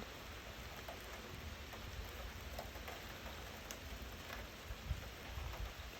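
Rain mixed with penny-size hail pattering steadily on the roof, with scattered small ticks from hailstones and a few low bumps near the end.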